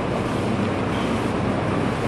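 Steady, even rushing background noise of a gym, with no distinct knocks or clanks standing out.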